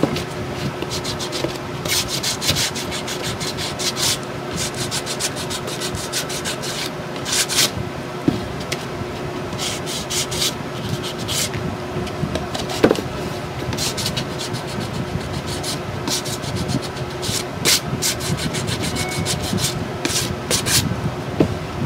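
Small sanding block rubbing over painted chipboard in runs of quick back-and-forth scratchy strokes, with short pauses between runs, sanding back dried antiquing cream to let the paint beneath show through.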